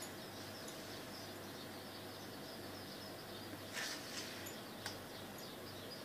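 Faint background of high, repeated chirping over a steady low hum, with a few soft taps about four seconds in.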